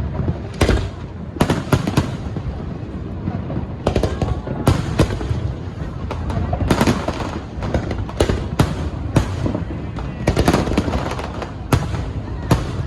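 Aerial fireworks going off: an irregular, steady series of sharp bangs and booms, one every half second or so, over a continuous low rumble of more distant bursts.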